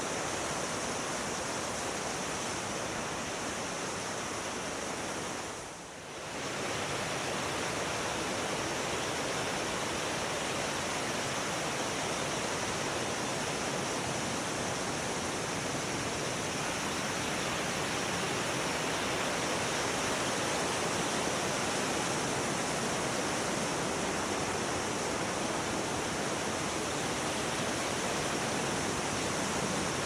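Mountain stream rushing over rocks below a waterfall: a steady whitewater rush that dips briefly about six seconds in.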